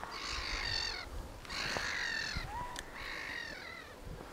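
A bird calling three times outdoors, each call about two-thirds of a second long with short gaps between.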